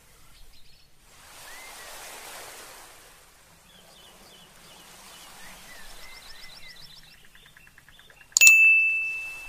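Faint beach ambience, a soft wash with a few small high chirps, then a bright cartoon ding sound effect about eight seconds in that rings out and fades: the 'correct answer' cue as an arrow points to the ocean.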